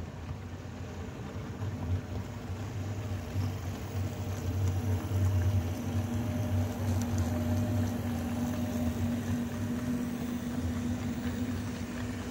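HO scale model ore train running past, its DM&IR SD-9 locomotives on modified Athearn drives giving a steady motor and gear hum. The hum is loudest as the locomotives pass, about five seconds in, then eases as the ore cars roll by.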